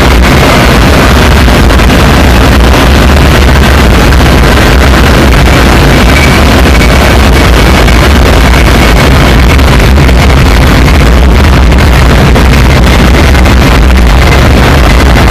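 Loud, dense electronic noise music played live from a laptop: a constant heavy low rumble under a wall of hiss, with a faint high whistle surfacing now and then.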